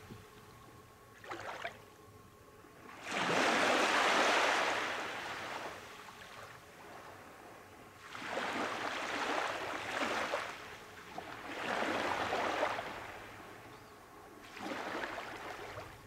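Small waves breaking and washing up a sandy beach, coming in surges every few seconds with quiet gaps between. The loudest wash comes about three seconds in.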